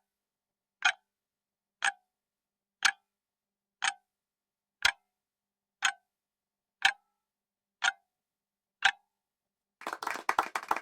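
Countdown timer ticking once a second, about ten ticks, as the 10-second answer time runs out. Near the end, an applause sound effect starts.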